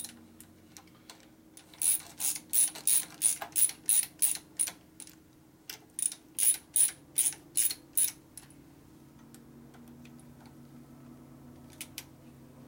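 Hand ratchet clicking as cover bolts are run down: two runs of quick clicks, about three a second, starting about two seconds in and again about six seconds in, with a couple of faint clicks near the end.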